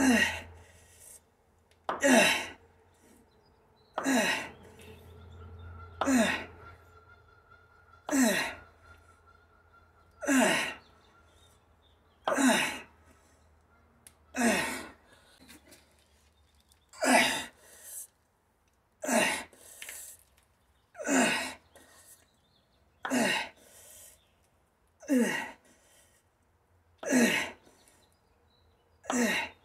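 A man's sharp, forceful exhalations, one with each rep of an overhead dumbbell press, about every two seconds, each a short breathy blast that falls in pitch.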